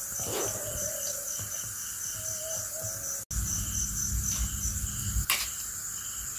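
Crickets chirping in a steady high pulsing trill, about five pulses a second. A low rumble comes in a little after three seconds in and lasts about two seconds.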